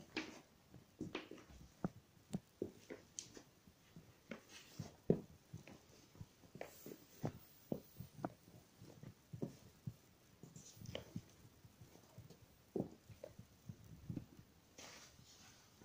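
Faint footsteps of sneakers on a hard floor: irregular soft taps and scuffs, about one or two a second.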